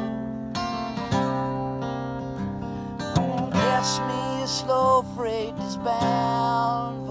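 Acoustic guitar strummed and picked, with steady ringing chords and fresh note attacks. In the middle a voice sings wordless wavering notes over it.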